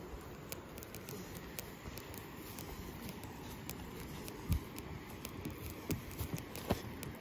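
Footsteps walking along a dirt path and onto pebbles and dry palm fronds, with soft scuffs and scattered faint clicks. There is a heavier thump about four and a half seconds in, and a few more steps thud near the end.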